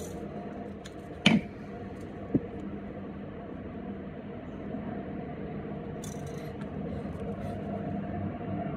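Handheld dual-probe battery spot welder joining nickel strip to 18650 cell terminals through a copper bus bar: a low steady hum, one sharp loud snap of a weld about a second in, a smaller click a second later, and light clicks of the probes near the end.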